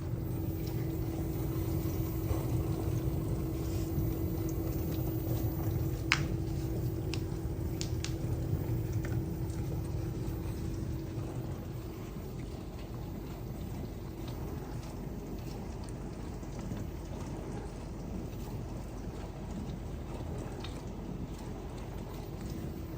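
LG dishwasher running a heavy-soil wash cycle: water sloshing and spraying inside the tub over a steady pump hum, which stops about halfway through. A single sharp click comes about six seconds in.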